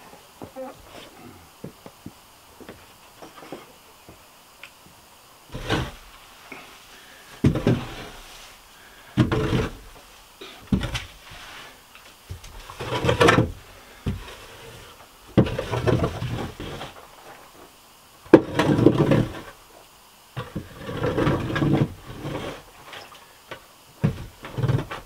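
Shovel scraping and scooping manure and straw off a barn floor in a series of rough strokes, one every one to two seconds, beginning about five seconds in after a few light knocks.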